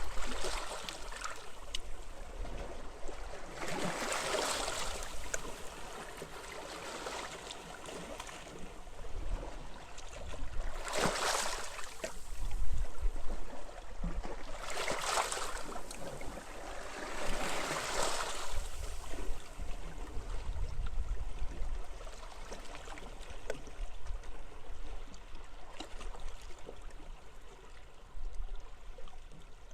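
Small sea waves washing onto a beach, each wash a swelling hiss that fades, the largest about four, eleven, fifteen and eighteen seconds in, with softer ones after. Under it runs a low wind rumble on the microphone.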